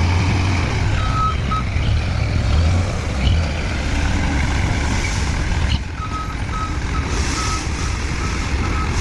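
Truck engine running low and steady under a reversing alarm that beeps in short runs, once about a second in and again through the second half.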